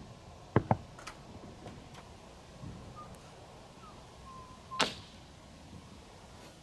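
Magnets snapping together through an RV windshield, holding a Magne Shade sunshade against the glass: a quick double click about half a second in and another sharp click about five seconds in.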